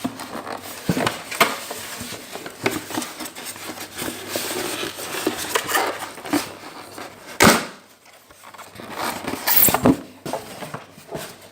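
Handling noise from unpacking a toy remote control car: rustling and small clicks and knocks of hard plastic parts and packaging, with a sharp knock about seven and a half seconds in.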